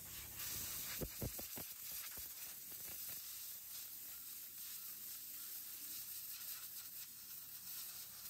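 Compressed-air gun hissing steadily as its jet blows over a sneaker's sole, with a few soft knocks about a second in.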